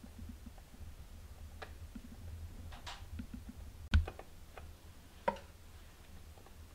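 Light kitchen handling sounds while assembling a layer cake: scattered soft clicks and taps of a metal spoon spreading cream, a single louder knock about four seconds in as a cake layer is pressed down on the glass cake board, and a sharp click a second later.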